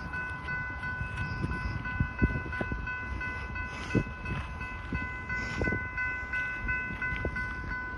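Railroad grade-crossing bell ringing steadily at about two strikes a second, over a low rumble with scattered thumps.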